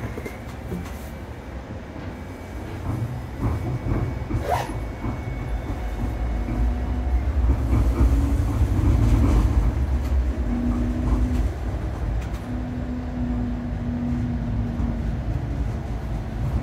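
Interior of a moving Flexity Outlook low-floor streetcar: the low rumble of the car running on its rails, growing louder about three seconds in. A steady low hum runs through the middle, with a few light clicks and rattles.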